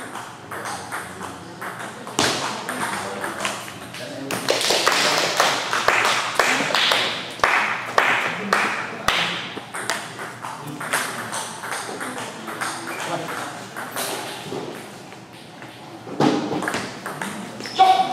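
Table tennis balls clicking sharply off bats and tables in rallies, with people talking in the background throughout.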